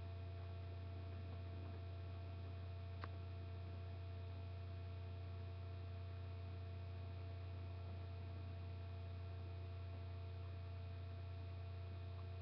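Steady low electrical hum with a faint even hiss, the noise of a webcam's built-in microphone. A single faint tick about three seconds in.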